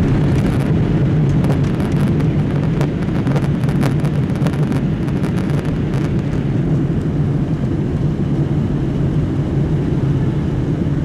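Boeing 737-800's CFM56 jet engines in reverse thrust during the landing rollout, a loud steady roar heard from inside the cabin. Knocks and rattles come through over the first five seconds as the aircraft decelerates on the runway, and the higher part of the noise eases toward the end.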